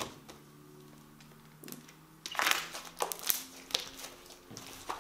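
Glue slime being squashed against a tabletop to pop trapped air, giving a run of sharp crackling pops that begins a couple of seconds in and goes on to near the end.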